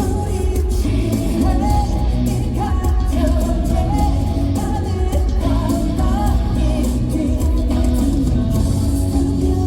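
Live pop song played loud over a concert PA: a male voice singing a melody over a band with guitar and heavy bass.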